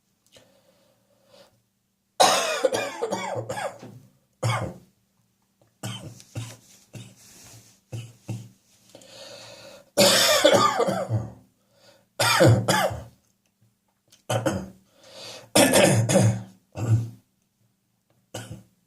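A person coughing repeatedly from a chest and throat full of catarrh, in a run of hacking fits mixed with throat clearing. The loudest bouts come about two, ten, twelve and fifteen seconds in, with shorter, quieter coughs between them.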